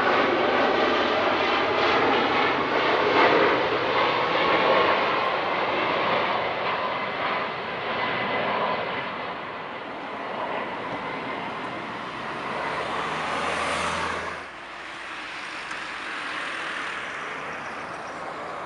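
Jet engines of a Boeing 767-300 on landing approach: a loud, steady rush. About 14 seconds in it cuts off abruptly, and the fainter rush of another twin-engine airliner on approach follows.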